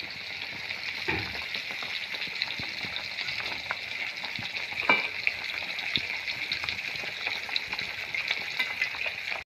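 Fish pieces frying in hot oil in a wok: a steady sizzle dotted with small crackles, with one sharper pop about five seconds in.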